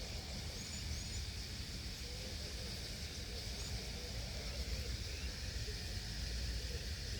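Steady rushing whir of the wings of a large swarming flock of birds, with a few faint chirps and a low wind rumble on the microphone.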